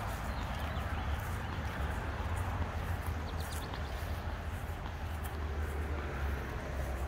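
Footsteps on grass while walking across a lawn, over a steady low outdoor rumble. A brief rapid series of chirps comes about three and a half seconds in.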